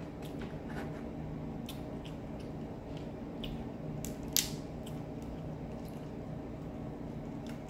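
Crab leg shells cracking and snapping as they are broken apart by hand: a scattering of short, sharp cracks, the loudest about four and a half seconds in, over a low steady hum.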